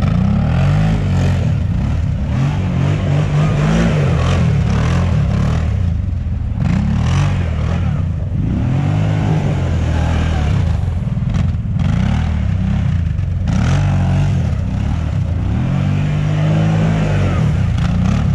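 ATV engine revving up and down over and over as the quad spins donuts on snow in two-wheel drive.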